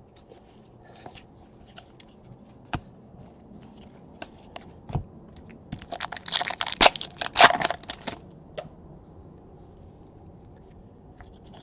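A baseball card pack's wrapper torn open, a cluster of ripping and crinkling about six to eight seconds in, with light clicks of cards being handled before it.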